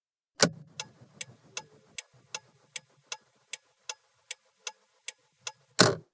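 A car's turn-signal stalk is flicked on with a sharp click, then the indicator clicker ticks evenly, about two and a half ticks a second. Near the end the stalk is clicked back off with another loud click.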